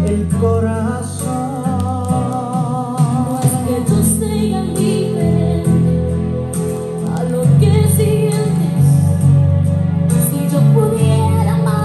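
Vinyl record playing a Spanish-language Latin ballad with singing over a steady accompaniment.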